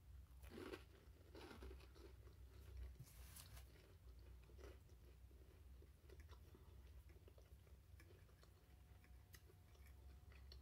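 Faint chewing and crunching of food in the mouth, with a few soft crunches in the first five seconds, then small clicks of a fork in the bowl as pasta is twirled.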